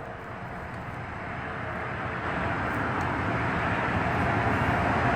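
Vehicle noise: a steady rumble and hiss that grows gradually louder.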